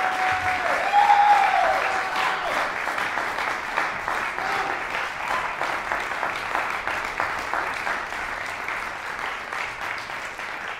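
Audience applauding: many hands clapping in a dense patter that slowly fades.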